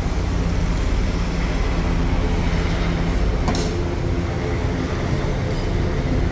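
Steady low mechanical rumble with a faint hum, with a single sharp tap about three and a half seconds in.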